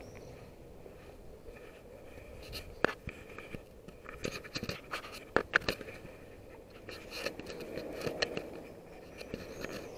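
Scratching and irregular sharp clicks of an action camera rubbing and knocking in its custom frame, the frame's lid half open, over a faint steady outdoor background.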